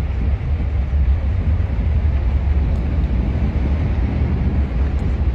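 Fast-flowing muddy floodwater rushing down a street: a loud, steady rushing noise with a heavy low rumble.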